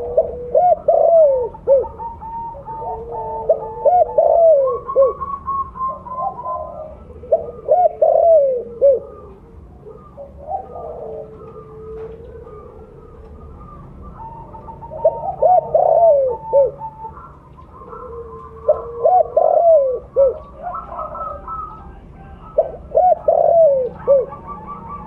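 Spotted dove (tekukur) cooing: a string of rhythmic, bouncing coo phrases repeated every few seconds, with a pause of several seconds about ten seconds in.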